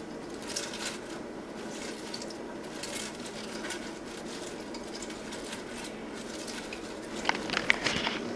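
Shredded cabbage and carrots being stirred with a utensil in a mixing bowl: soft rustling and scraping with scattered light clicks against the bowl, a few sharper clicks near the end.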